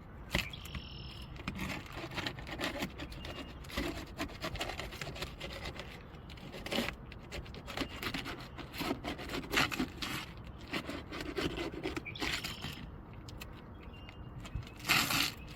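Roof snake being worked under a roof shingle to reach and remove its nails: irregular scraping, rubbing and clicking, with a louder scrape near the end.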